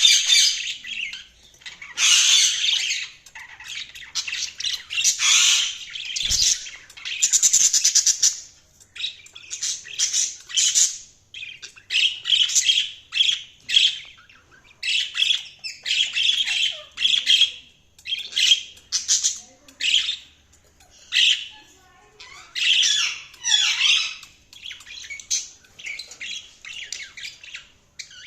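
Budgerigars chirping and chattering in a continuous run of short, scratchy high calls and warbles, broken by brief pauses. There is a short low thump about six seconds in.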